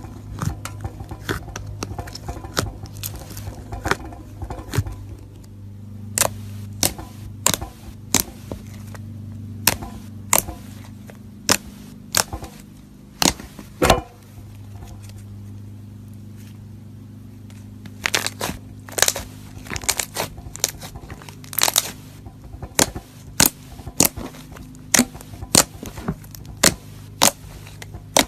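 Crunchy slime being squeezed and pressed, giving sharp crackling pops, irregular at first, a lull about halfway through, then about two pops a second, over a steady low hum.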